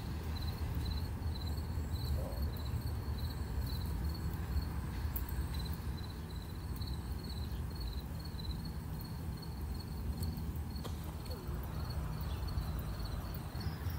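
An insect chirping: a thin, high pulse repeating at an even pace, over a steady low rumble.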